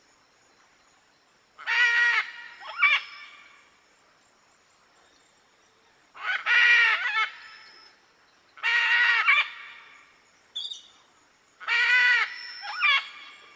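Macaws squawking: four loud calls a few seconds apart, most followed at once by a shorter squawk.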